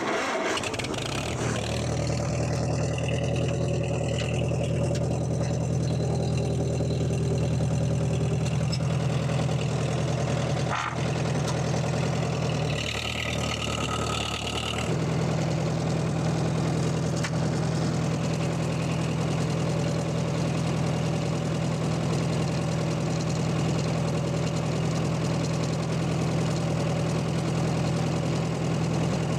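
1942 Farmall M tractor's four-cylinder engine running steadily at an even, low speed. Its sound changes briefly about halfway through.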